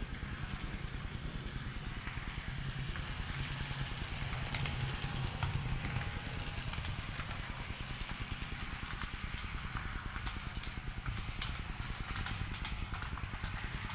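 Model of a DB Class 628 (VT628) diesel railcar running on a model railway layout: a steady low rumble that is strongest around the middle as it passes close, with scattered light clicks.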